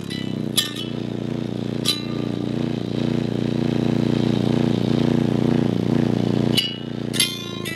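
Two Digital Designs 3000-series 12-inch subwoofers playing a very low bass song loud inside the car's cabin, the bass coming across as a heavy buzzing drone. Sharp rattles from the car's panels cut in about half a second in, near two seconds, and several times near the end.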